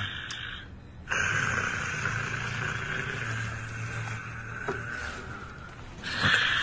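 A person snoring. One long rasping breath starts about a second in and lasts around four seconds, with a low rumble partway through. The next breath begins near the end.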